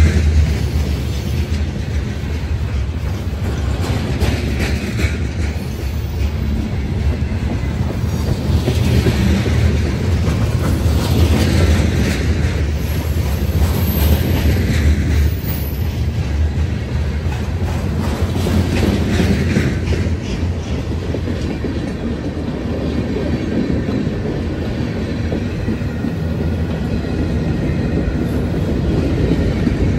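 Freight cars of a CSX train rolling past at trackside: a steady loud rumble with the clickety-clack of wheels over the rail. Higher squealing wheel noise comes and goes between about 8 and 20 seconds in.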